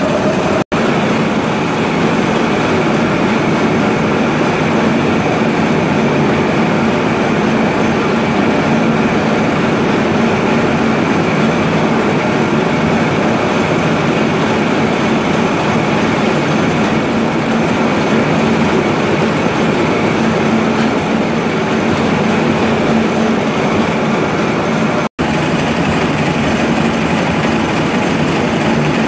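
Heavy lathe boring a deep 90 mm hole in an Inconel 625 bar at about 68 rpm, with coolant pouring over the cut: a loud, steady machining noise. It cuts out for an instant twice, about a second in and near the end.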